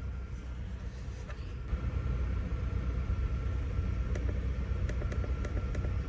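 A 2009 Acura TSX's 2.4-litre four-cylinder engine idling with a steady low rumble, running a little stumbly from a cylinder 2 misfire that turns out to be caused by a bad ignition coil. Light, evenly spaced clicks come in over the second half.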